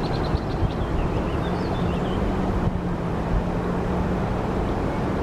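Steady outdoor rush of noise with a low, steady hum coming in about a second and a half in, and a few faint high bird chirps in the first two seconds.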